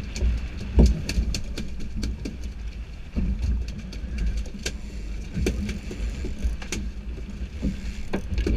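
Boat engine running steadily with a low rumble, under frequent sharp knocks and clicks at irregular intervals.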